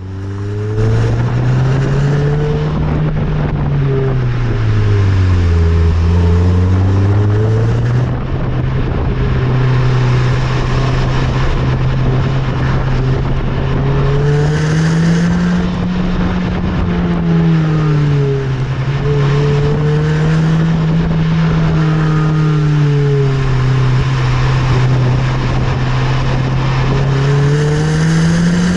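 Nissan Note Nismo S's four-cylinder engine through its stock stainless-steel exhaust while driving, its note rising and falling repeatedly as the revs climb and drop, with a brief break about eight seconds in.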